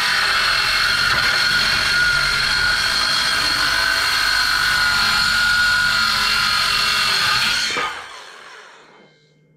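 Electric power saw running steadily as it trims the overhanging plank ends off a board door, then switched off just under eight seconds in and winding down.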